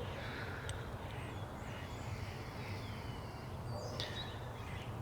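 Birds chirping and calling faintly in short whistled notes, some gliding in pitch, over a steady low hum.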